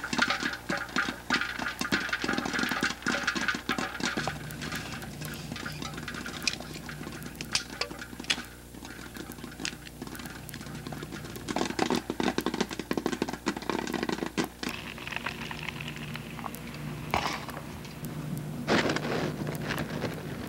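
Popcorn popping in an electric popcorn popper: rapid, dense pops for the first few seconds, thinning to scattered pops. Later come a few short rustling bursts.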